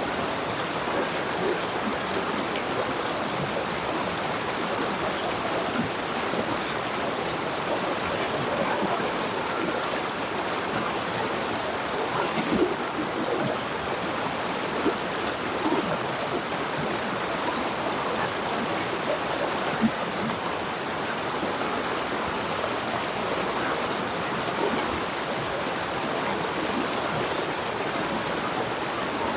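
Jungle river flowing, a steady rushing and gurgling of water over rocks with small splashes throughout.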